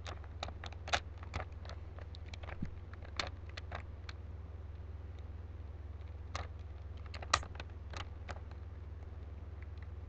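Rubik's Cube faces being twisted by hand through a move sequence: irregular quick plastic clicks, thickest in the first few seconds and again around two-thirds through, over a steady low hum.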